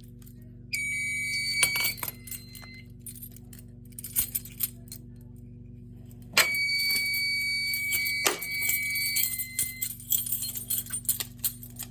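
Two bursts of a steady high-pitched electronic tone, the first about a second long and the second about two to three seconds, each starting abruptly, over a constant low electrical hum, with a few small clicks and jingles.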